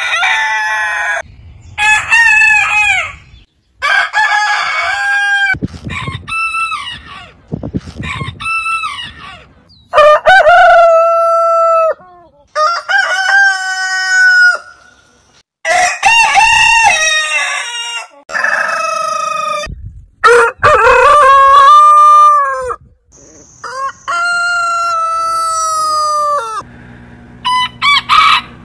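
Roosters crowing, one after another: about a dozen cock-a-doodle-doo crows from different birds. Each crow rises, holds and falls away, and the longest are drawn out for two to three seconds.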